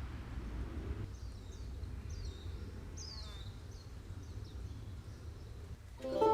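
A bird singing a run of short, high, downward-sweeping notes over a low steady rumble of outdoor background noise. Plucked-string music starts near the end.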